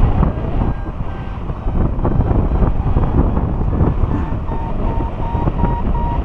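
Wind buffeting the microphone of a paraglider pilot's camera in flight, a loud steady rumble. From about four seconds in, a paragliding variometer beeps in a high tone, the climb signal for rising air.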